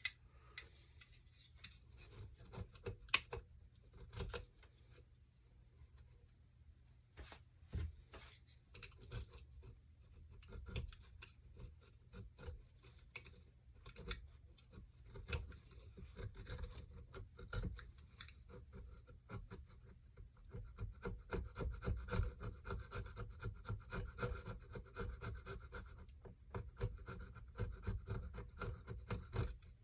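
Hand scraper scraping old gasket material off a small engine's metal mating surface in short, irregular strokes, busier and louder in the last third.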